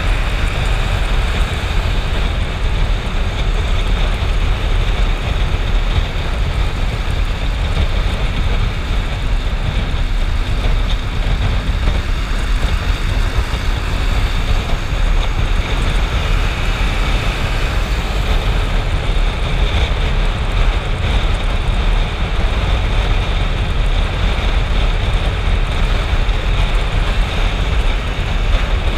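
Motorcycle riding at speed in traffic: a steady rush of wind buffeting the camera microphone, strongest at the low end, with the bike's engine running underneath.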